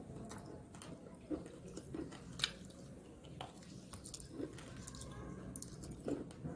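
A person chewing and biting food, with scattered small crunches and moist clicks.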